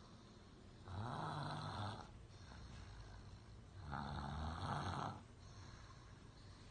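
Snoring: two long snores about three seconds apart, each lasting about a second, with quieter breathing in between.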